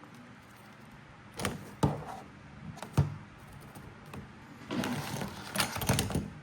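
Plastic toy figures and pieces being handled: a few sharp clicks and knocks, then a quick run of clicking and rattling near the end.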